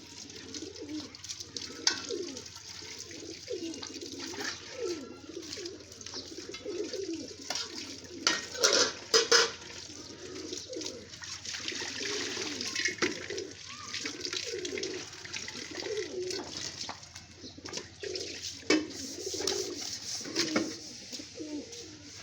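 Several pigeons cooing continuously, their low rising-and-falling coos overlapping. Scattered clicks and rustles run through it, with a louder noisy rustle about eight to nine seconds in.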